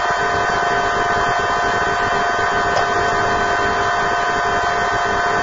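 A steady, even hiss-like noise with several held steady tones over it, unchanging in level.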